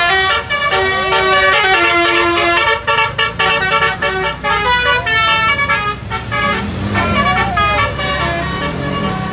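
Indonesian bus basuri (telolet) musical air horns sounding in quick runs of short, stepping notes, a melodic multi-tone horn display. A low bus engine rumble sits underneath from about three seconds in.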